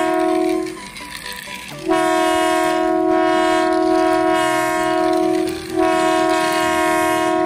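Light-up battery-powered toy train's electronic horn sound: a steady, buzzy single-pitch tone held for several seconds at a time. It cuts out just under a second in, when only the toy's quieter running noise is heard, comes back about two seconds in, and has a short break near six seconds.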